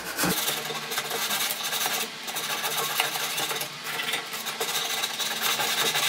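Sandpaper scraped rapidly by hand over the rusty sheet-steel edge of a washing machine cabinet, a continuous rasping, with a steady motor-like hum underneath.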